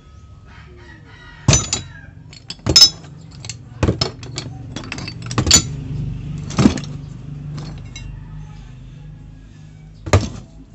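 Scrap metal motorcycle parts (sprockets, chain, brake shoes) knocking and clinking against each other as they are shifted around in a cardboard box. There are about half a dozen sharp clanks with lighter rattles between them, over a low steady hum.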